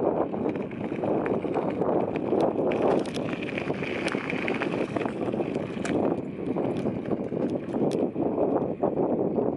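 Bicycle rolling over a rough, cracked road: a steady rumble of tyre and frame noise that swells and dips with the surface, with scattered sharp clicks and rattles from bumps.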